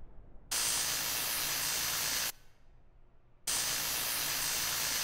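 Gas welding torch hissing in two bursts of about two seconds each, cutting in and out abruptly with a short pause between, as a cartoon sound effect.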